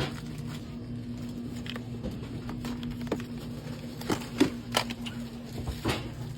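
Small items being handled: scattered light clicks and taps, the sharpest about four to five seconds in, over a steady low hum.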